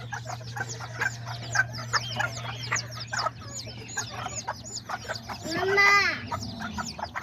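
Many bantam chicks peeping in quick, high, overlapping chirps, with one louder drawn-out call about six seconds in. A low steady hum sits underneath for the first half.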